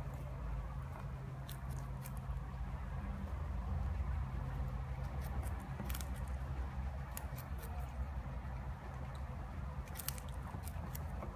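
Guinea pigs gnawing a piece of carrot, with irregular sharp crunching bites that come in small clusters of two or three. A steady low hum runs underneath.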